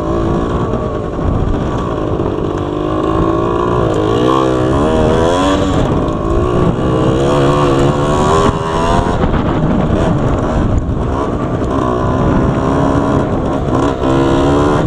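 Yamaha DT80's 80cc two-stroke single-cylinder engine being ridden, its pitch rising and falling several times as the throttle is opened and closed. By the owner's account, the carburettor needs rejetting for the cold.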